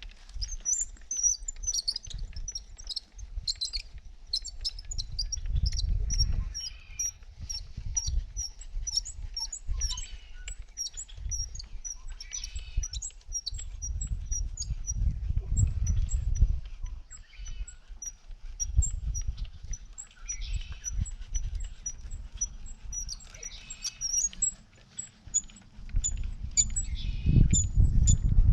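A small bird chirping over and over, about two short high chirps a second, with bursts of low rumbling and scraping underneath.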